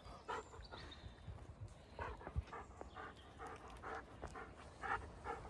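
Dog panting: a faint, quick run of short breaths, starting about two seconds in.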